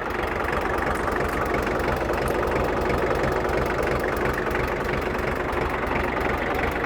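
Diesel engine of a 1963 International TD5 crawler dozer idling steadily, a little louder after about the first second.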